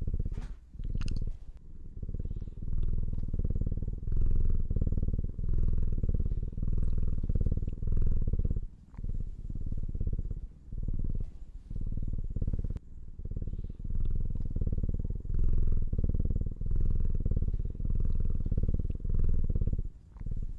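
Dragon Li tabby cat purring as it falls asleep: a steady low rumble that swells and dips with its breathing, roughly once every two seconds.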